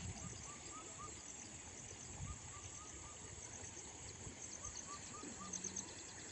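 Rural outdoor ambience: a steady high-pitched insect drone, with a bird repeating short chirping calls and quick runs of sharper chirps that grow loudest near the end.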